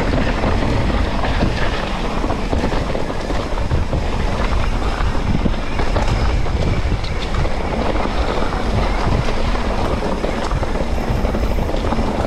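Wind buffeting the microphone in a steady, heavy rumble, over the rolling and rattling of a mountain bike being ridden along a trail.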